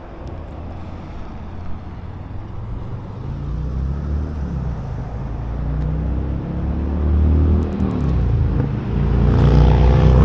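A motor vehicle engine running with a low, deep note that grows steadily louder through the second half, its pitch shifting a little near the end.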